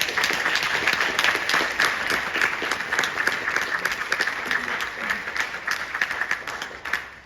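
Concert-hall audience applauding steadily, the dense clapping stopping fairly suddenly near the end.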